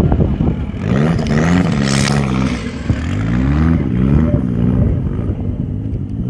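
Off-road buggy's engine revving hard under load in several rising and falling surges as it climbs out of a dirt pit.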